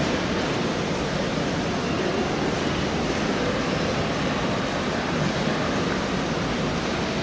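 Steady rushing wash of falling water from the atrium fountain under the hotel's metal sculpture, echoing in the tall space, with a faint murmur of distant voices.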